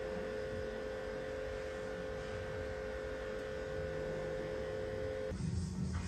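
Steady electrical hum at one constant pitch, with a fainter tone above it, cutting off abruptly about five seconds in.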